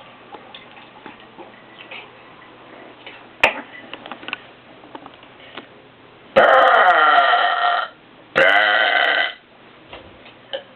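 A person belching loudly twice, about six seconds in: a long wavering belch of about a second and a half, then a shorter one after a brief pause.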